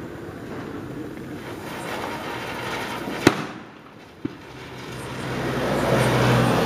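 Diwali firecracker going off on the ground. There is a sharp bang a little over three seconds in and a smaller pop about a second later. Then a rushing noise builds and grows louder as it sprays sparks.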